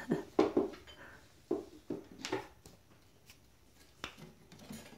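Plastic toy kitchen being tugged and rattled as a child pulls at its stiff oven door: scattered light knocks and clicks, several close together at the start, then spaced out.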